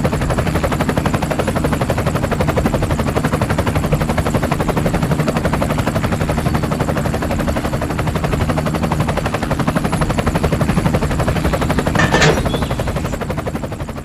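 Toy plastic helicopter running, its spinning rotor and motor mechanism making a fast, steady rattle of rapid clicks. A single sharper click about twelve seconds in.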